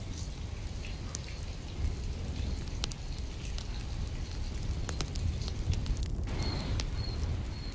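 Steady rain: a continuous hiss of falling rain over a low rumble, with scattered sharp drop ticks.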